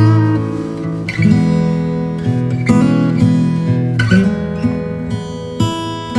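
Background music: an acoustic guitar strumming chords, with a new strum about every one to one and a half seconds.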